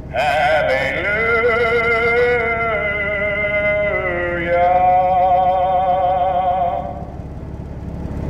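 A man singing two long drawn-out notes with wide vibrato, the first sliding down near its end, the second trailing off about seven seconds in. A steady low rumble runs underneath.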